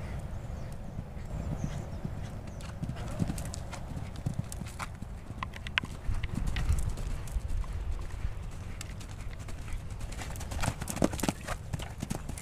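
Horse cantering on sand arena footing, its hoofbeats thudding in a running rhythm, loudest near the end as it passes close.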